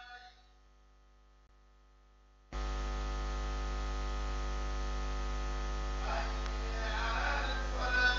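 Music fades out in the first half-second. About two and a half seconds in, a loud, steady electrical mains hum with a buzz cuts in abruptly, as a sound-system line opens. Music starts over the hum near the end.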